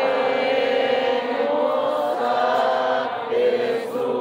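Slow religious hymn sung by voices in Spanish, with long held notes that step to a new pitch every second or two.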